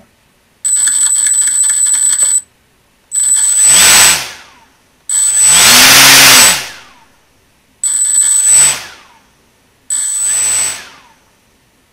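Small brushless motor on an ESC, spinning a two-blade propeller: first a high electronic buzz as it hesitates to start, then four short spin-ups whose whir rises and falls in pitch. The motor will not pick up smoothly at low throttle, which the owner thinks may be a poor match between motor and ESC.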